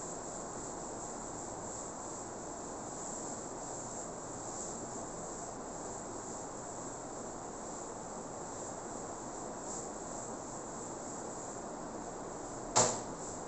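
Steady high-pitched background hiss with no clear rhythm, then a single sharp click about a second before the end.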